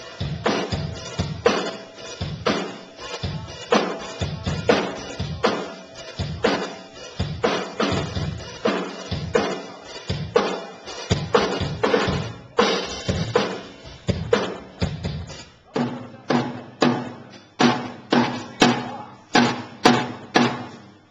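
Drum kit played during a band's sound check: a steady run of drum strikes, then from about fifteen seconds in single pitched drum hits repeated evenly, a little under two a second, as a drum is checked for level.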